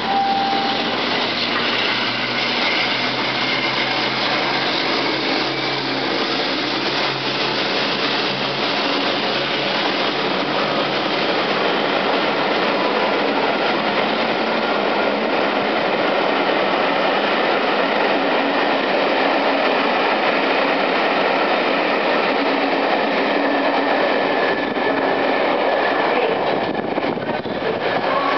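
Class 52 'Western' diesel-hydraulic locomotive D1015 Western Champion, with its twin Maybach engines running, coming through the station. A long train of coaches then rolls past with steady wheel-and-rail noise and some clickety-clack.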